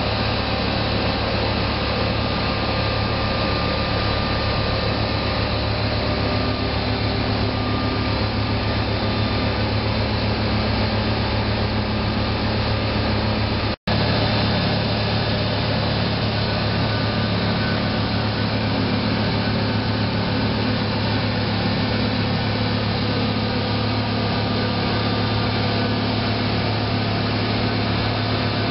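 Muller Martini 3601 book saw running steadily: an even mechanical whir and hum from its motor and drives, with a brief break in the sound about halfway through.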